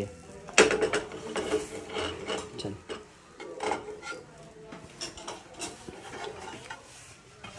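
Metal slotted spatula scraping and tapping against a steel frying pan as a slice of bread is pressed and turned in ghee, in irregular clicks and scrapes.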